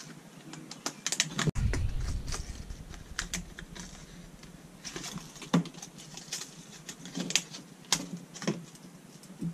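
Stiff plastic lure packaging being worked open by hand: irregular crackles and clicks, with a dull bump about a second and a half in.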